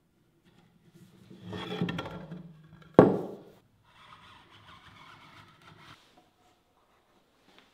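A metal marking tool scraping along the edge of a wooden board as a scribe line is cut, with a single sharp knock about three seconds in, then a second, softer scraping stretch.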